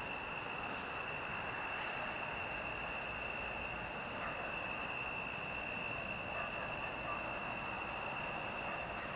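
Crickets chirping: a steady high trill, with short high chirps repeating about twice a second over it.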